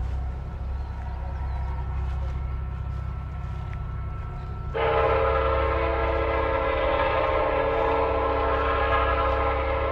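Train sound effect: a steady low rumble of a train running, then a long train horn blast of several notes sounded together, starting suddenly about halfway through and held for several seconds.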